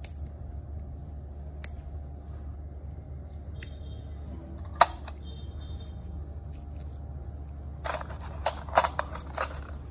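Sharp clicks of a metal nail nipper closing: four single clicks spread over the first five seconds, then a quick run of clicks and rustles near the end, over a steady low hum.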